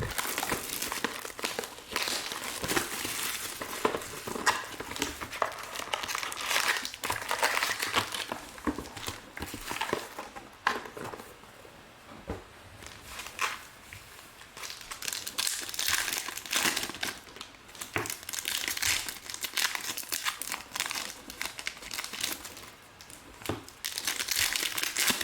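Plastic trading-card pack wrappers crinkling and tearing as packs are opened by hand, in irregular bouts with a quieter stretch midway.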